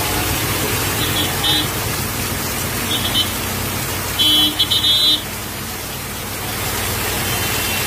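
Heavy rain pouring steadily, with a vehicle horn tooting briefly twice and then a quick series of short, louder toots around the middle.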